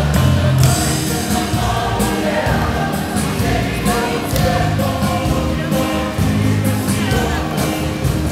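A group of voices singing together in chorus, with sharp percussive hits or claps keeping a beat: live music for a Samoan group dance.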